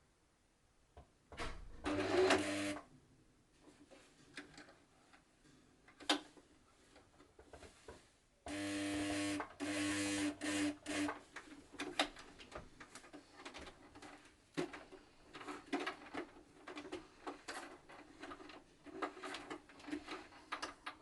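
Singer 8280 sewing machine motor running in short spurts: a brief run about two seconds in, and a longer stop-start run around the middle. Later come a string of light clicks and knocks from handling the machine.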